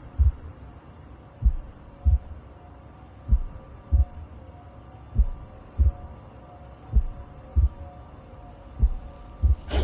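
Slow heartbeat-like pulse in a film score: low double thumps, a pair about every two seconds, over a faint steady drone. Loud music cuts in at the very end.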